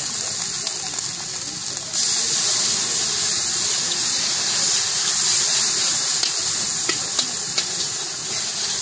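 Battered slices deep-frying in hot oil in an iron karahi: a steady, high sizzle with a few faint pops. The sizzle turns louder about two seconds in.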